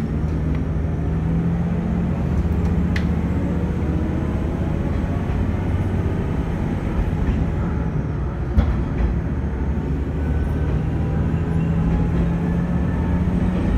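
Diesel railcar running along the line: a steady low engine drone mixed with wheel and rail noise, and one sharp knock about eight and a half seconds in.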